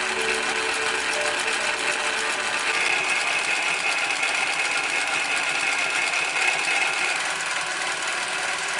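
Global EM 119-2 N-P picot industrial sewing machine running steadily at speed, its two needles, rotating hooks and hole puncher giving a dense, even whir.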